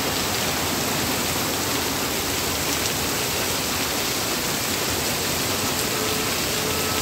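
Heavy monsoon downpour: a steady, even hiss of rain pouring onto a flooded street and pavement.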